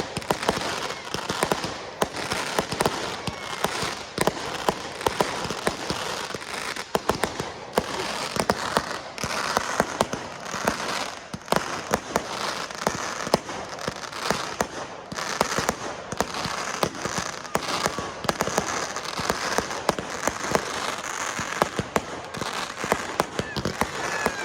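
A fireworks display going off continuously: dense crackling with many sharp bangs and pops in quick succession.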